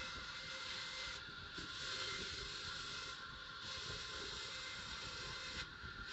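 Band saw ripping timber into thin boards: a steady hiss of the blade cutting through the wood over a constant machine tone, easing off briefly about three times as the feed changes.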